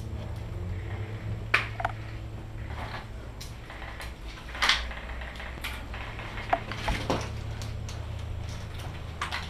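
Irregular clicks and knocks of carried gear and footsteps from a person moving on foot, over a steady low rumble. The loudest knock comes near the middle.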